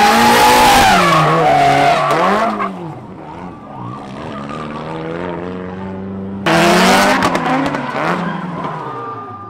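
Drift cars sliding with tyres squealing and engines revving, the engine note rising and falling on and off the throttle. A second loud slide starts suddenly about six and a half seconds in, with sharp crackles, then fades away near the end.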